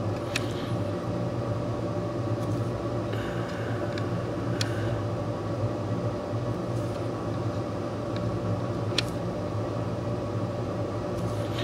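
Steady low mechanical hum, with three faint ticks spread through it.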